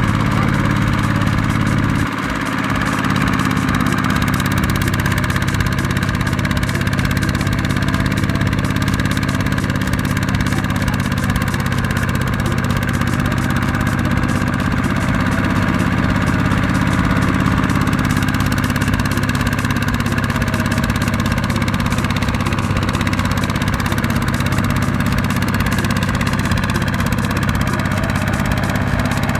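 Single-cylinder diesel engine of a two-wheel walking tractor running steadily under load as it tries to drag a trailer of rice sacks out of sticky mud, with a brief dip in loudness about two seconds in.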